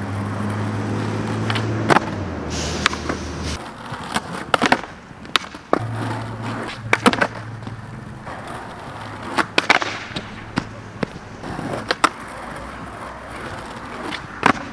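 Skateboard on Independent 144 trucks rolling over concrete with a steady low rumble. The rumble breaks off after about three and a half seconds and starts again a couple of seconds later. Sharp clacks of the tail popping and the board landing are scattered throughout, about ten in all.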